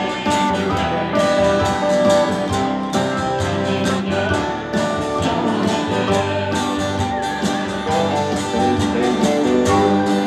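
Live band music: strummed acoustic guitar and a ukulele over a steady beat, played as an instrumental passage with little or no singing.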